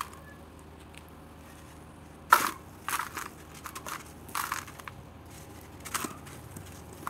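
Hands crushing and crumbling red dirt blocks in a tub with water. After a quiet start there is one loud crunch about two seconds in, then several shorter crumbling crunches.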